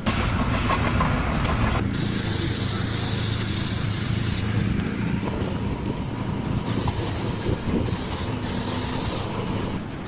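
A hissing spray that starts and stops three times over the steady hum of a running engine.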